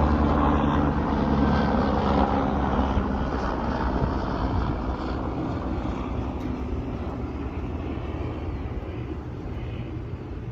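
Helicopter passing overhead, its engine and rotor drone loud at first and fading steadily as it flies away.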